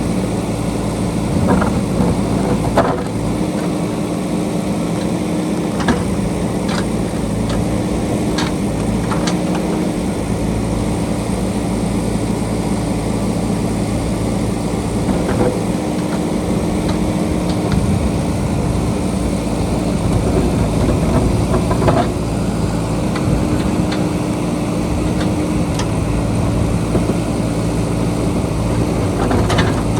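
JCB backhoe loader's diesel engine running steadily, its pitch holding level, with a scattering of short sharp knocks and clanks from the machine's work.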